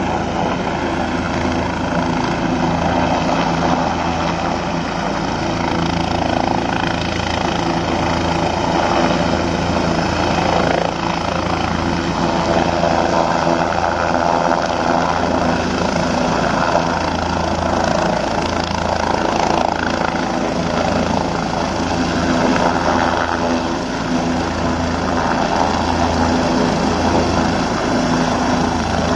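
A turbine helicopter hovering just above a helipad. Its main rotor beats steadily over the engine's steady whine.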